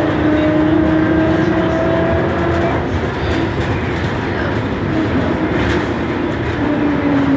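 Škoda 15Tr03/6 trolleybus heard from inside while moving: the electric traction motor whines, rising slowly in pitch over the first few seconds as the bus gathers speed, over steady running and body noise. Near the end the whine comes back, falling in pitch as the bus slows.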